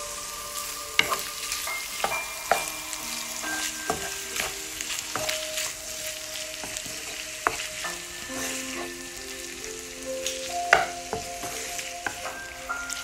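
King prawns and onion sizzling in hot oil in a frying pan as they are stirred, with a few sharp knocks of the utensil against the pan.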